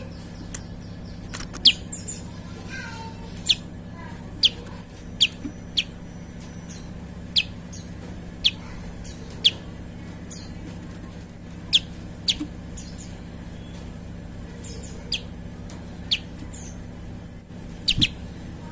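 Prinia (prenjak) calling: sharp, very short downward-sweeping notes, single or in quick pairs, about one a second, over a steady low hum.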